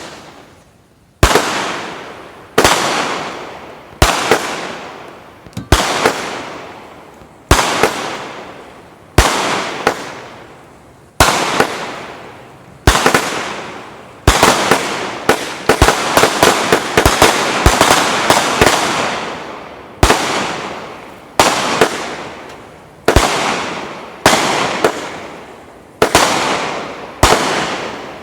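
A King Bird 'No Where To Run' 100-shot, 500-gram consumer fireworks cake firing shot after shot: each shot is a sharp bang followed by a fading tail, about one every one and a half seconds, with a quicker run of shots in the middle.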